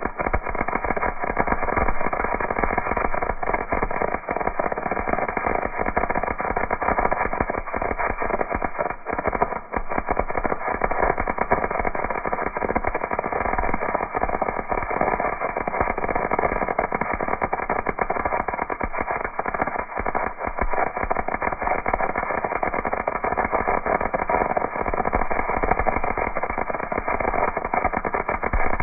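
MIG welding arc from a PrimeWeld MIG180 welder, crackling and sputtering steadily throughout as a bead is laid.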